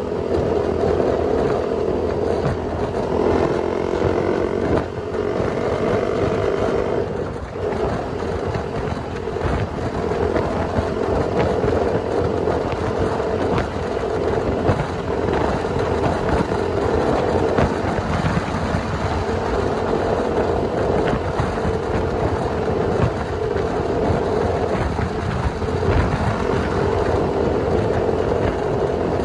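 Husqvarna motorcycle engine running steadily at highway cruising speed, around 90 km/h, mixed with wind and tyre noise. The engine drone eases briefly twice early on, then holds steady.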